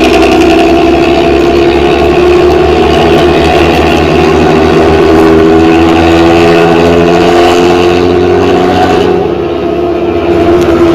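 Bus engine running loud through a modified 'ngorok' (snoring) exhaust: a throbbing low rumble with a steady drone over it. It eases off briefly about nine seconds in, then picks up again.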